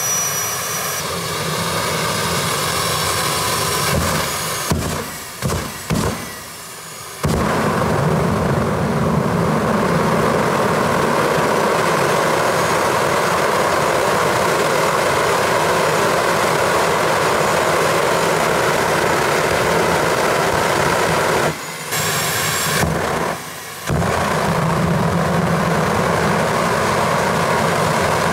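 Homemade turbocharger jet engine on a go-kart running hard with its afterburner lit: a high turbine whine that rises and levels off, under a loud steady rushing exhaust. A few seconds in, the sound falters and drops out for a moment, then comes back full. Near the end it dips briefly twice.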